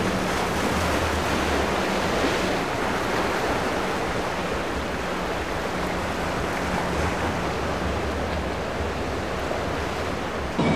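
Rough surf: waves breaking in a steady wash, with wind on the microphone, and a faint low drone of outboard motors underneath.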